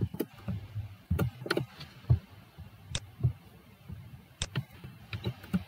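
Irregular clicking keystrokes on a computer keyboard, with a few louder sharp clicks.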